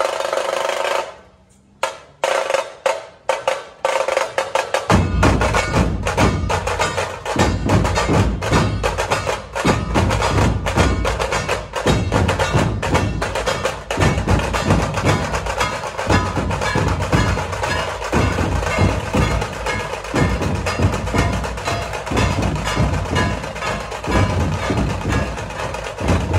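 Dhol-tasha troupe playing: fast, sharp tasha strokes alone at first, then the deep dhol drums join about five seconds in and the full group plays a loud, driving rhythm.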